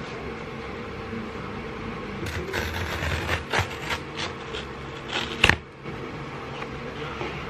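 A cardboard mailer envelope being handled and slid across a desk: scraping and rustling from about two seconds in, with one sharp, loud snap about five and a half seconds in. A steady low hum runs underneath.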